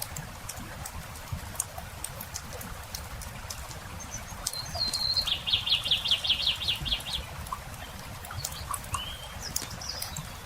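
Campfire crackling with scattered small pops, under a songbird's song: a short note about four and a half seconds in, then a fast trill of repeated notes lasting about two seconds. Two brief single chirps follow near the end.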